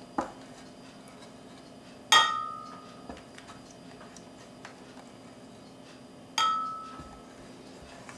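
Two ringing clinks of a ceramic plate against glass as chopped tomato is tipped from the plate into a glass bowl, one about two seconds in and one about six seconds in, each ringing briefly before fading.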